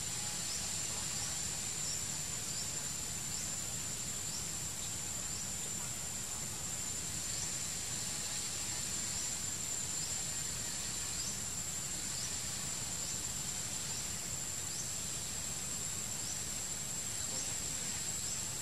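Forest ambience: a steady high-pitched insect drone with short chirps repeating about once a second, over a low steady rumble.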